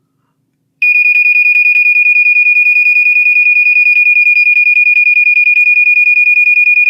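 1982 General Electric Home Sentry ionization smoke alarm's horn sounding on test, starting about a second in: a very loud, high-pitched tone beating in a very fast march-time pattern.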